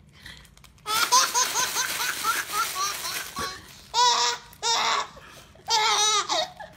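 Baby laughing hard: after a quiet first second, a quick run of short rising giggles, about four a second, then three loud belly-laugh bursts.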